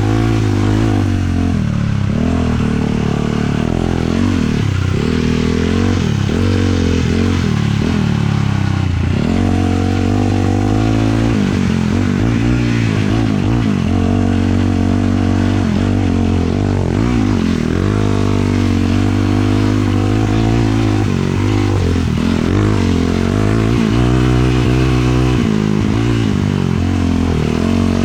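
A 450cc single-cylinder four-stroke sport quad engine running under way. Its pitch rises and dips again and again as the throttle is worked, over a steady rushing noise.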